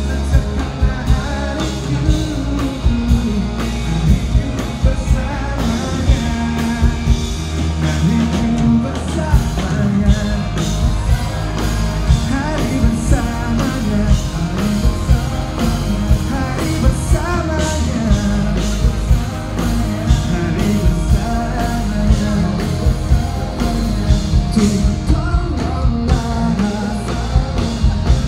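Live pop-rock band playing with a singer singing into a microphone over a steady drum beat.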